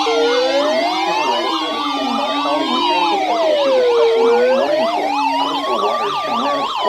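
Several sirens sounding together: a slow wail rising and falling about every four seconds, with fast yelping sweeps and a lower wavering tone layered over it.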